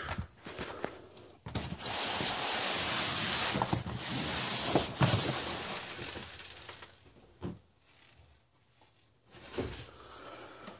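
Rustling and scraping of cardboard packaging as a box is opened by hand, with a few light knocks. It dies down about seven seconds in.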